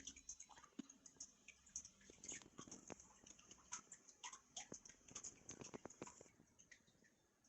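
Faint, irregular small clicks and light rustling of things being handled by hand, several a second, thinning out near the end.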